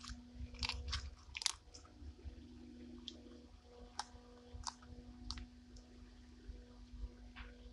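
Clear slime packed with tiny foam beads being squeezed and pressed by hand, giving irregular crisp clicks and crackles, a cluster in the first second and a half and then scattered pops.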